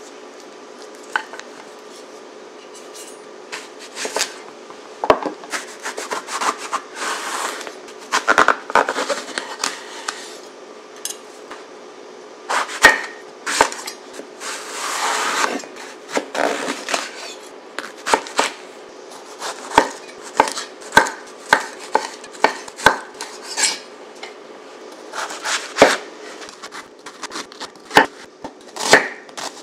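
Wide-bladed kitchen knife cutting eggplant on a wooden cutting board: irregular knocks of the blade on the board, with scraping and handling in between. Near the end the knife strikes come closer together as it starts cutting an onion. A faint steady hum runs underneath.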